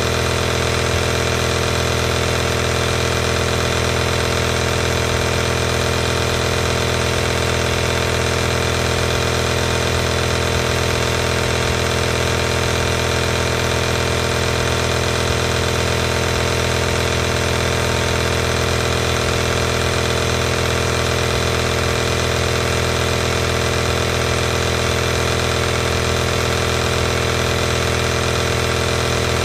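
Home compressor nebulizer running: its small piston air pump gives a steady, unchanging mechanical hum and buzz.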